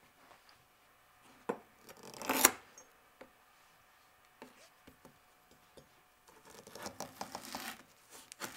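Chef's knife cutting through a lemongrass stalk on a plastic cutting board: a few scattered faint cuts and scrapes, then a quicker run of cuts near the end. There is a brief louder rustle a couple of seconds in.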